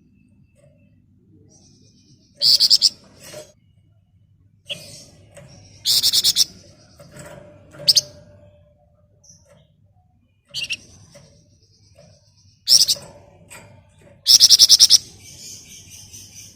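Flamboyan songbird singing short, rapid, high-pitched trilled bursts ('ngebren', 'nyerecet') that repeat every second or two, with softer chirps in between.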